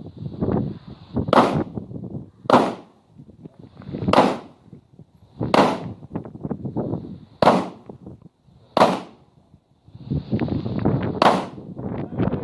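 A Glock 19 Gen 3 9 mm pistol firing a slow string of single shots, spaced about one to three seconds apart, with a rustling noise between them.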